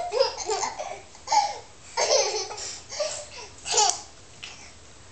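A young child's high-pitched laughter, in several short bursts with brief pauses between them.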